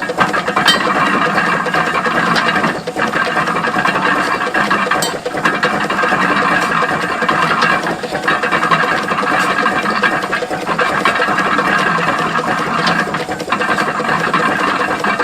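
1936 Case hay baler running, belt-driven by a 1910 Burrell steam traction engine: a steady mechanical clatter with a brief dip in level about every two and a half seconds.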